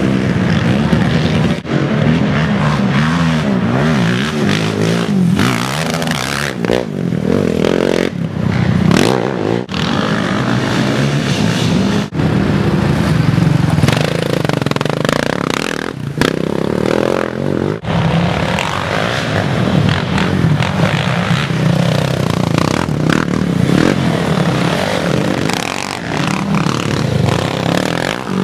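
Sport quad ATV engines racing, revving up and down as riders accelerate and back off over a dirt and mud course. The sound breaks off and changes abruptly several times.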